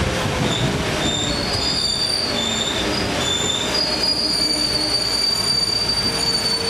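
Commuter train running on the tracks over a steady rumble. Its wheels squeal against the rails in thin high tones, on and off at first and then held steadily from about halfway through.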